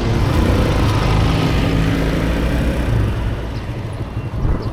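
Motorbike engine running steadily while riding, with wind and road rush over it.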